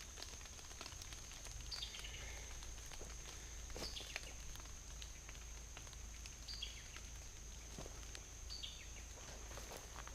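Quiet woodland ambience: a short falling call repeats about every two seconds over a steady high insect drone, with scattered light ticks.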